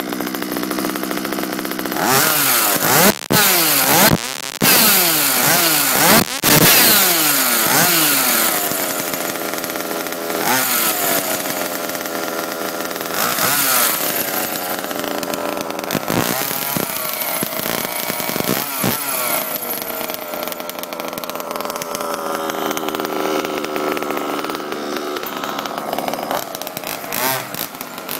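Ported 26 cc Zenoah two-stroke engine of an FG Baja 2WD RC car, running at a steady idle for the first couple of seconds. It is then revved hard several times, the pitch sweeping up and down with brief sudden dips, before settling into a steadier run with occasional blips of throttle.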